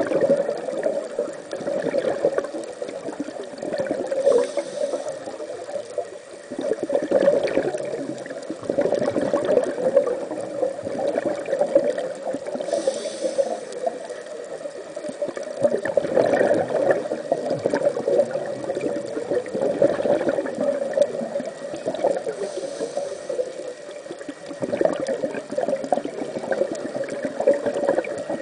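Muffled underwater noise from a scuba diver's breathing, with exhaled bubbles gurgling in swells that rise and fade every few seconds. A faint high hiss comes three times, typical of an inhale through the regulator.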